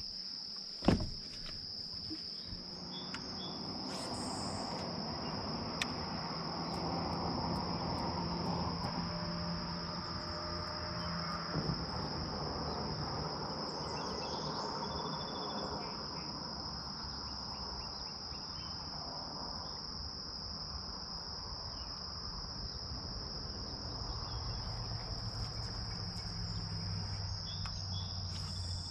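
Steady high-pitched trilling of insects in the shoreline woods, a continuous chorus. Just under a second in there is a sharp splash as a largemouth bass is dropped back into the water, and a low steady hum runs underneath for most of it.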